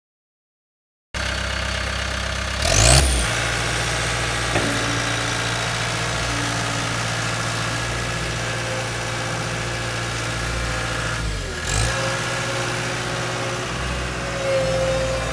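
Caterpillar 252B skid steer loader's diesel engine running steadily, with two brief surges in engine speed, about three seconds in and again near twelve seconds.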